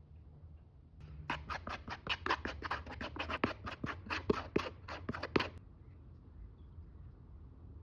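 Rapid, even scraping strokes, about five a second, starting about a second in and stopping after about four and a half seconds.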